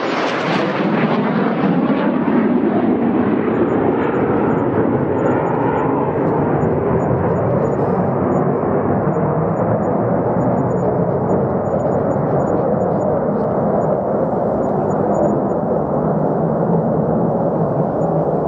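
Fighter jet engine noise, a loud rushing roar that starts abruptly and slowly loses its high hiss, growing duller while keeping its level.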